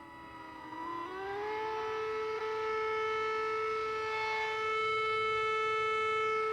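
Century rotating tornado siren sounding a steady wail. Its pitch dips and then climbs back up about a second in, then holds. The sound swells and fades as the rotating horn sweeps past.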